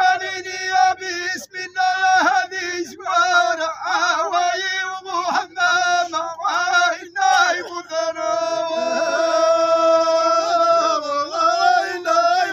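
Ahidous chant: a line of men singing together in unison, in short phrases broken by brief pauses, then holding one long steady note from about eight seconds in. No regular drumbeat is heard.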